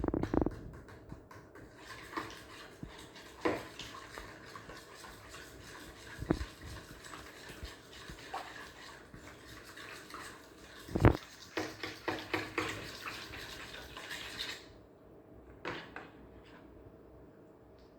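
Kitchen utensils and bowls knocking and clinking at irregular moments, the loudest knock about 11 seconds in, over a steady hiss that cuts off about 14.5 seconds in.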